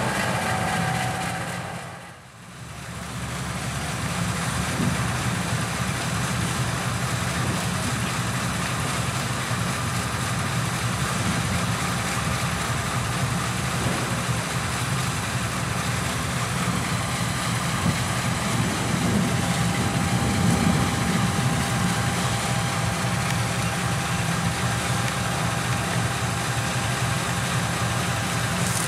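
CC 201 diesel-electric locomotive's GE 7FDL-8 V8 diesel engine idling steadily while the locomotive stands waiting. The level dips briefly about two seconds in.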